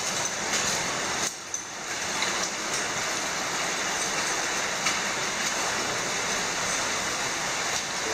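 Steady rush of running water in an underground cave stream, with a brief drop in level about a second in and a few faint clicks.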